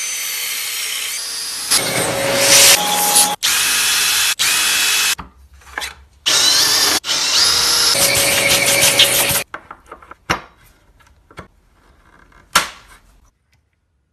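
Cordless drill boring the cup hole for a concealed cabinet hinge through a plastic jig into wood, with the motor whining in several runs and brief stops, then drilling small pilot holes beside it. After that, a few light clicks and knocks of the hinge being handled, with one sharp click near the end.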